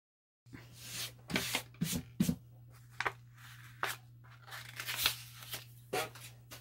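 Sandpaper rustling and scraping in short, irregular strokes as it is handled, over a low steady hum.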